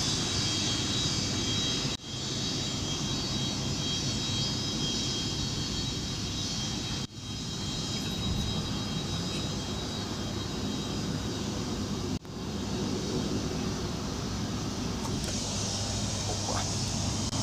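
Antonov An-148 airliner's twin turbofan engines whining steadily as it rolls along the runway after landing: several steady high tones over a low rumble. The sound drops out briefly three times, about two, seven and twelve seconds in.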